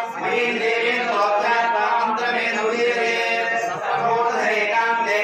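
Hindu priests chanting mantras: a continuous, sung recitation in men's voices.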